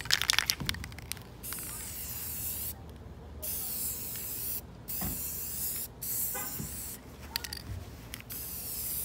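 Aerosol spray-paint can: a quick rattle as it is shaken, then spraying in about five hissing bursts of a second or so each, with short gaps between.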